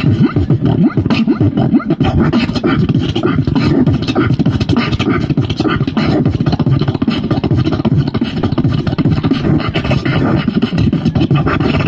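Fast freestyle beatboxing into a handheld microphone, played through a small portable amplifier: a dense, unbroken stream of heavy bass kicks and sharp snare-like clicks.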